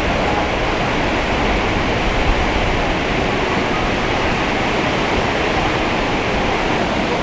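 Large waterfall in full flow, swollen by heavy rain: a loud, steady rush of falling and crashing water.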